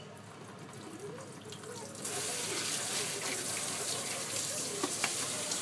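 Kitchen tap turned on about two seconds in, water running steadily into the sink, with a couple of small knocks.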